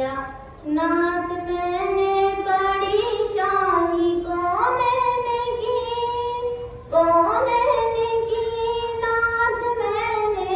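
A girl's solo voice singing a naat, an Urdu devotional poem, into a microphone, holding long drawn-out notes that slide between pitches. She takes a breath near the start and again about seven seconds in.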